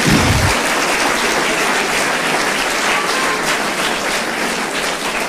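Applause from a large audience: many people clapping in a steady, dense round that eases slightly near the end.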